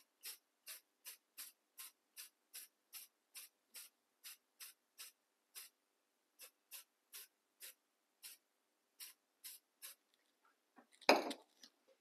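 Rust-Oleum matte clear coat spray can applied in short repeated bursts, two to three hisses a second, pausing briefly a couple of times. A single louder short sound near the end.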